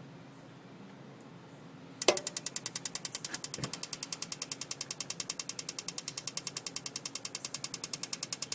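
Spark igniter of a propane water heater clicking rapidly and evenly, about ten sparks a second, starting about two seconds in. The burner is not lighting, the repeated ignition failure the owner is complaining about.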